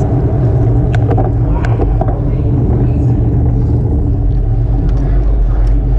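Steady wind rush over a bicycle-mounted action camera's microphone with rolling road and tyre noise as the bike coasts, broken by a few sharp clicks.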